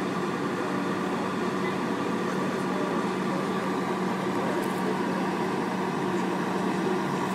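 Steady mechanical hum with a constant low tone over city street noise.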